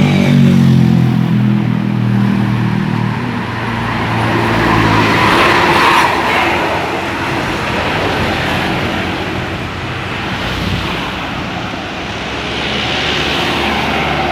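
Road traffic passing close by: a heavy vehicle's deep engine drone starts suddenly and fades over about three seconds, then more vehicles pass about six seconds in and again near the end.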